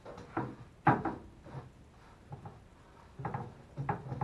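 Paper towels being pulled and torn off a roll: a handful of short rustles and knocks, the loudest about a second in.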